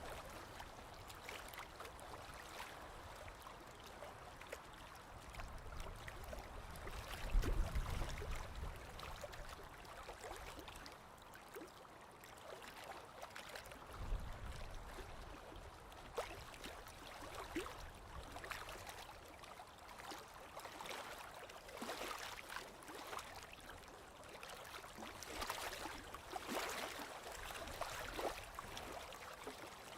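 Small waves lapping and splashing gently against a lake shore, in uneven swells with many small splashy clicks; a low rumble rises briefly about a quarter of the way in and again about halfway.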